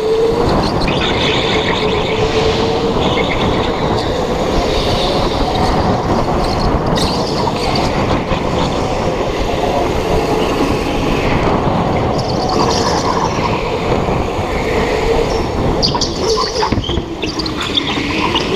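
Go-kart running flat out around an indoor track, recorded on board: a steady motor drone that drifts slightly in pitch over heavy rushing and rumbling noise, with short tyre squeals now and then in the corners.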